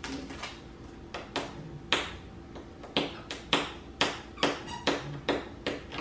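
A series of sharp taps, about a dozen, coming at roughly two a second in the second half.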